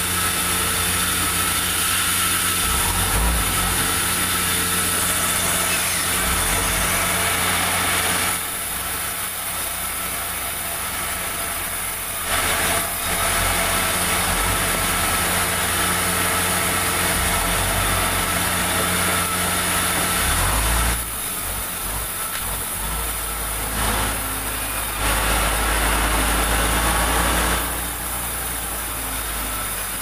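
Vertical band saw mill running, its blade cutting through soft, light pulai wood with a loud steady hiss over the machine's hum. The hiss eases back to the plainer hum about eight seconds in, again about twenty-one seconds in, and near the end.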